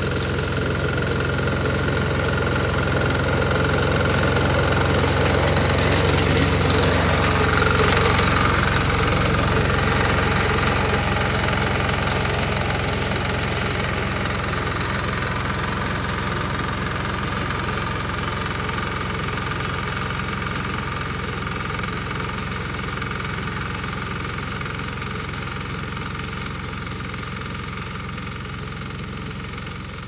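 Walk-behind mini tiller engine running steadily while driving a paddy reaper attachment through standing rice. It grows louder over the first eight seconds or so, then slowly fades.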